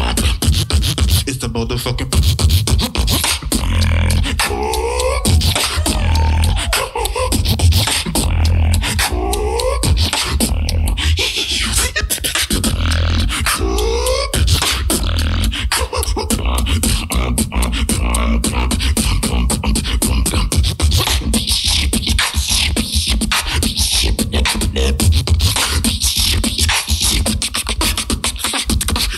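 Solo beatboxing: a mouth-made drum pattern of deep bass kicks and dense hi-hat-like clicks, with a rising pitched vocal sweep about every four to five seconds in the first half.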